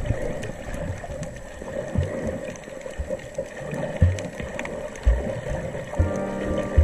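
Muffled underwater sound picked up by a camera held below the surface: a steady gurgling water hiss with dull low thumps about once a second. Music with sustained notes comes in near the end.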